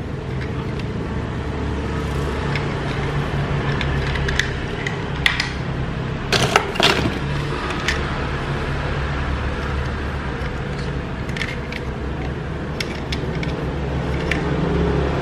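Small die-cast toy vehicles clicking and clinking against each other as they are handled in a cardboard box, a cluster of sharp clicks about halfway through and a few more near the end, over a steady low hum.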